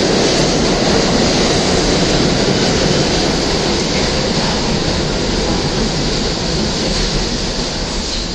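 New York City subway train noise at a station platform: a steady, loud low rumble with a hiss on top, with no distinct clacks or squeals.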